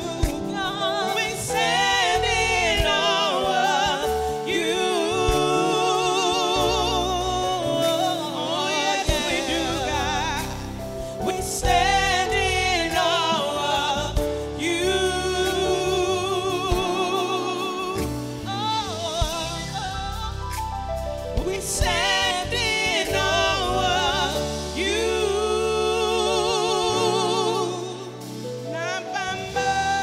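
Female vocalists singing a gospel worship song live over band accompaniment, holding notes with a wide wavering vibrato and singing melodic runs.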